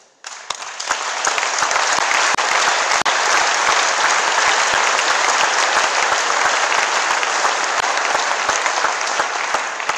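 Audience applauding: many people clapping, starting suddenly, building within the first second, holding steady and fading out near the end.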